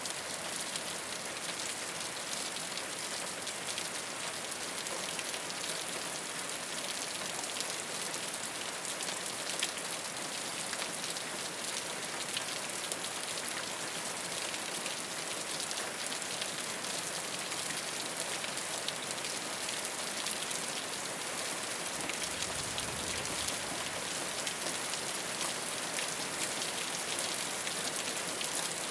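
Steady rain falling on a rooftop: a dense, even patter with many single drop ticks standing out.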